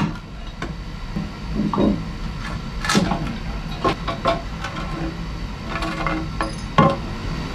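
Hammer striking old concrete nails left in the floor: a handful of irregular sharp strikes with smaller clicks and clatter between, the loudest about three seconds in and near the end. A steady low hum runs underneath.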